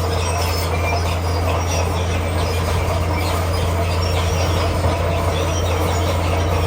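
Komatsu D41P crawler bulldozer at work: a steady low diesel drone with many short squeaks and clanks from its steel tracks.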